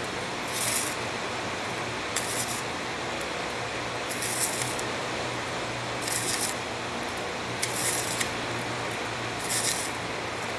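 Pinches of sand sprinkled by hand onto a red-hot billet of bandsaw blades as forge-welding flux, each landing as a short hissy spatter, about six times, one every one and a half to two seconds, over a steady low hum.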